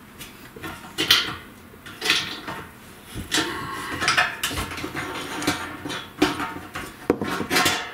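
Metal tools and parts clinking and knocking as they are handled: irregular sharp clanks with a short ring, several close together near the end.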